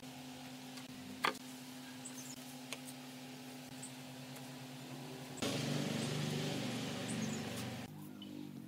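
Wooden strips clicking and knocking as they are set down on a plywood board, with one sharp knock about a second in, over a steady low hum. About halfway through, a louder rumbling noise starts and lasts a couple of seconds.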